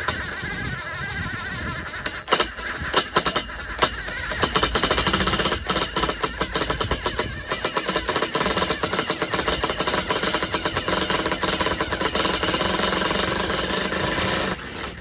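Power drill with a titanium-coated twist bit boring slowly through schedule 40 steel pipe where it joins the top center connector, the bit chattering and grinding against the metal. The drilling goes unevenly for the first few seconds, runs steady and louder from about four seconds in, and stops just before the end.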